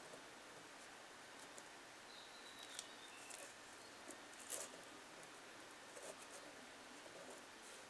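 Faint rustling and light ticks of glued paper strips being pressed and smoothed by hand over a paper mache form, with a slightly louder crinkle about four and a half seconds in.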